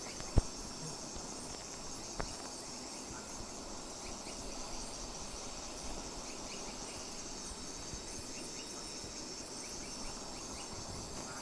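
Steady chorus of night insects, a high pulsing trill. A sharp click about half a second in and a fainter one around two seconds.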